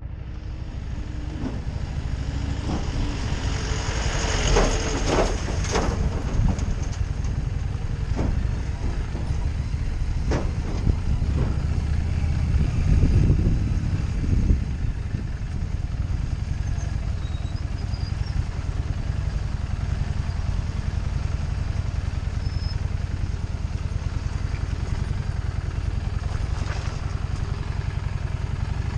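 Harley-Davidson Street 750's V-twin engine running under way as the motorcycle rides over a rough dirt track, a steady low rumble. Scattered knocks and rattles from the bumpy ground come through in the first half.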